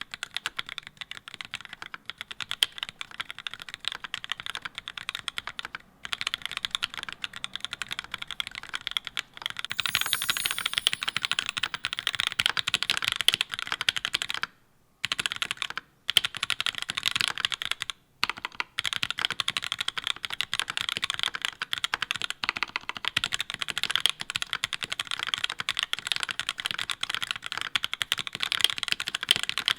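Mechanical keyboard with GMK doubleshot ABS keycaps in Cherry profile being typed on continuously: a rapid, steady stream of key clacks, with a few short pauses in the middle.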